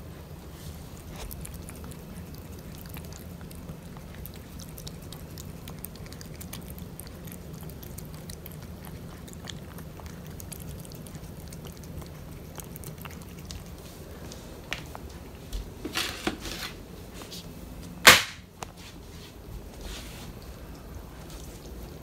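A cat chewing flaked wet cat food from a plastic plate, with soft, faint wet clicks of its mouth. A few louder scuffs come about three-quarters of the way through, followed by one sharp knock.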